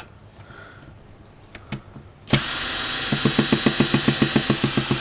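Cordless drill driver backing a screw out of an old Makita drill's casing. After a sharp click about two seconds in, the motor runs, and a second later it chatters in a fast, even rhythm of about eight clicks a second, which the user takes to mean the screw is out.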